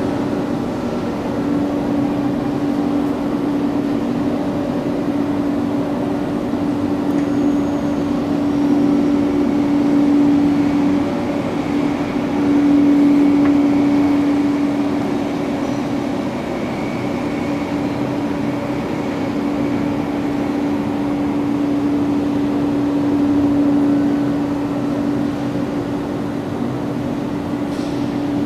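Steady machinery hum in a factory hall: a constant mid-pitched drone over a bed of mechanical noise, swelling and easing a little in level without a break.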